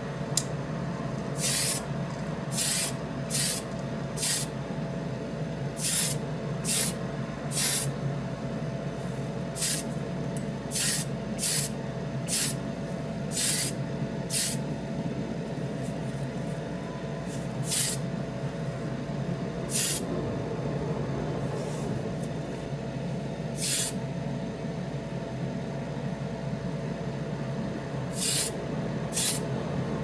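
Short hisses of paint spray, about eighteen brief bursts at uneven intervals, coating a small diecast toy part, over a steady low hum.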